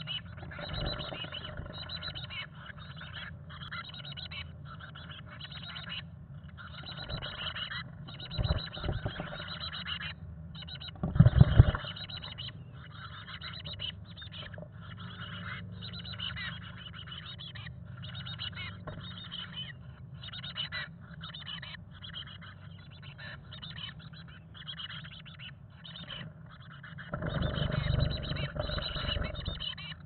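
Chickadee nestlings calling and chirping inside a wooden nest box, mixed with rustling of wings and bodies against the box. A loud flutter and thump come about eleven seconds in. Near the end a longer burst of flutter and louder calling comes as a parent enters the box to feed.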